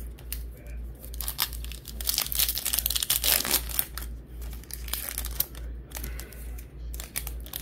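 Foil trading-card pack wrapper being torn open and pulled apart by hand, crinkling and crackling, loudest about two to four seconds in. A low pulsing hum runs underneath.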